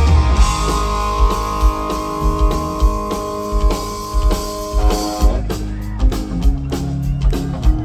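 Rock music with guitar and drums, a steady beat under held guitar notes.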